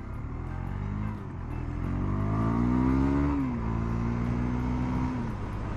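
Husqvarna Svartpilen 401's single-cylinder engine pulling away from a stop. The revs climb, drop at a gear change about a second in, and climb again. After a second shift about three and a half seconds in, the engine holds steady, then eases off near the end.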